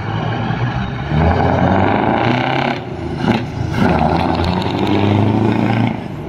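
Scania R500 V8 truck engine with an open straight-through exhaust, pulling a loaded container trailer and accelerating past. It gets louder about a second in, dips briefly about three seconds in, rises again, then falls away near the end.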